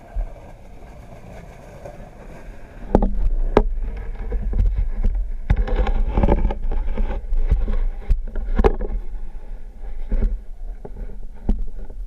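Muffled knocks and a low watery rumble picked up inside a submerged camera's waterproof housing as it is moved about under the ice. After a quiet hum for the first few seconds, irregular sharp knocks come over the rumble from about three seconds in.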